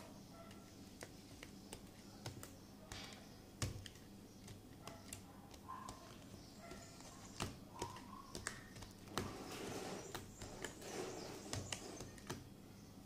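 Plastic spoon stirring sticky slime of glue, laundry detergent and shaving foam in a bowl. It makes irregular clicks and taps against the bowl, with one louder tap about three and a half seconds in, and a stretch of soft squishing near the end.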